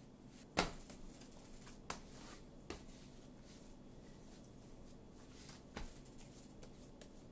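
Hands mixing and kneading pizza dough in a stainless-steel bowl: soft rustling and squishing, with a few sharp knocks, the loudest about half a second in.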